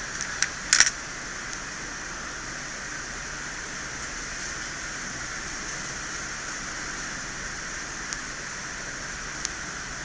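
Steady fan-like hiss, with a quick cluster of sharp clicks about half a second in and two faint single ticks near the end.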